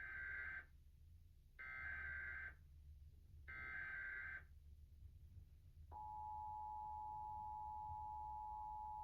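Emergency Alert System SAME data header: three bursts of shrill digital warbling, each about a second long, followed about six seconds in by the EAS attention signal, a steady two-tone alarm that sounds without a break.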